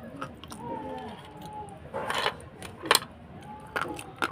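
Slate pencil being bitten and crunched between the teeth: a grainy crunch about two seconds in, then three sharp snapping bites.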